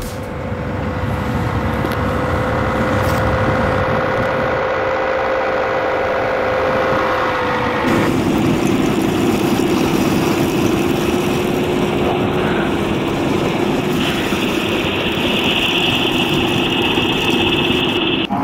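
A cheap electric fan recorded to stand in for a sports car's V12 engine sound: a steady humming drone, something-is-broken sounding, that drops to a lower pitch about halfway through. A higher whine joins for the last few seconds.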